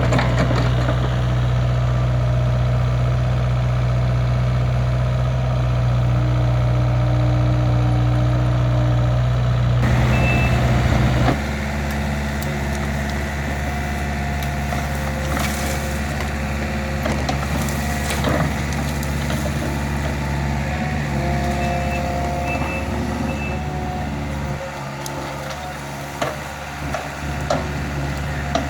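Hydraulic excavator engine running steadily while it digs, working hard for the first ten seconds or so and then dropping to a lower setting. Scattered clanks of the bucket in the dirt and a few short beeps come through over the engine.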